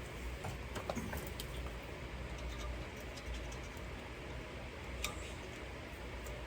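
Scattered light clicks and taps of small hardware and hand tools being handled as old screws and bracket parts are taken off, over a steady background hiss.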